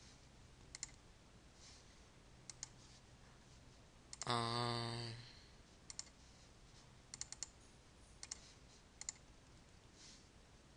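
Computer mouse button clicks, single and in quick runs, as folders are opened in a file dialog. About four seconds in comes a louder low buzzing hum, about a second long, with a slightly wavering pitch.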